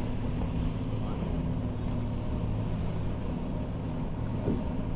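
Boat engine idling with a steady low hum, and a brief thump about four and a half seconds in.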